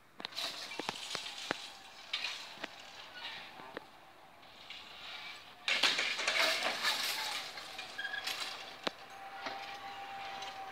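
Railway level-crossing barriers coming down: scattered metallic clicks and clinks from the booms and their mechanism, with a louder rush of noise starting about halfway through and a steady humming tone near the end.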